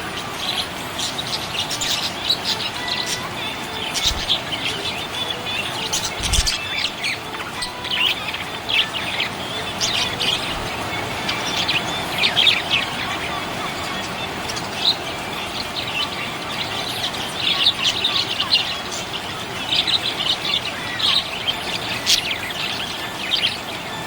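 Small pet parrots chirping and twittering without pause in quick, short high calls, with a brief low thump about six seconds in.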